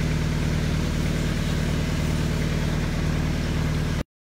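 A boat engine idling steadily with an even low hum. The sound cuts out abruptly just before the end.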